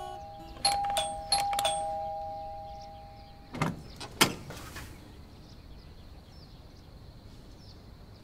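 Electronic doorbell chiming: a two-tone ding-dong struck three times in the first two seconds, each tone ringing on and fading. About three and a half seconds in come two sharp clunks from the door lock and handle as the door is opened.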